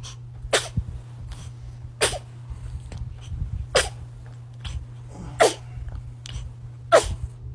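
A baby sneezing over and over: five sharp little sneezes, about one every second and a half, with fainter sniffs between them.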